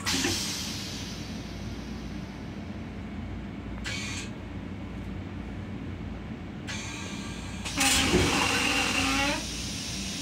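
Stainless-steel toilet of a Metro-North M7 railcar flushing about two-thirds of the way through: a short hiss, then a louder rush of water with a whine that bends in pitch as the bowl drains. The steady rumble of the running train lies underneath.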